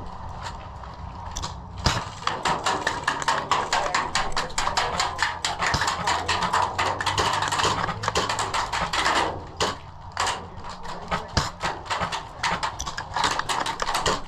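Airsoft guns firing full auto with BBs striking nearby, a rapid run of sharp cracks that starts about two seconds in, eases off briefly near ten seconds, then picks up again.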